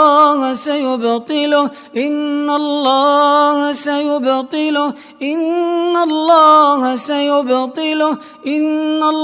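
A man reciting the Quran in the melodic, drawn-out chanting style of tajweed. Long held notes slide up and down in pitch, in phrases of about three seconds with brief breaks between them.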